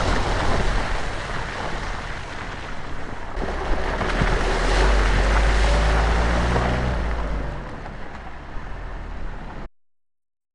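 Kia Sportage 2.0 turbo diesel driving through mud and standing water: tyres churning and water splashing over the engine running, with the engine most audible in the middle. The sound cuts off suddenly near the end.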